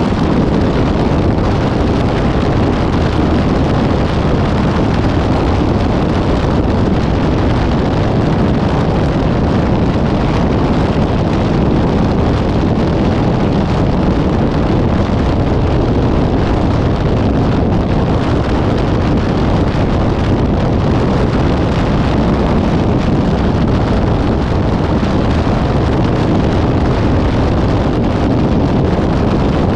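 Steady road and wind noise from a moving vehicle, a dense low rumble with no horn blasts or other sudden sounds.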